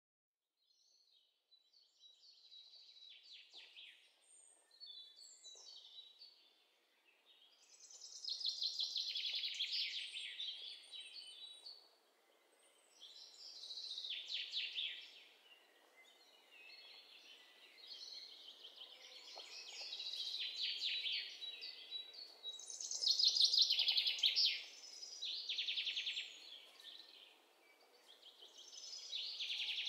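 Birds chirping and trilling in high, rapid bursts every few seconds, over a faint steady hiss.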